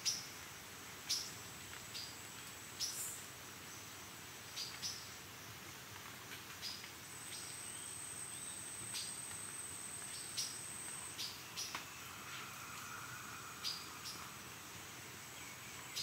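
Amazon rainforest daytime ambience: a steady high insect drone, with short sharp bird chirps about every second, and a louder high insect whine for a few seconds in the middle.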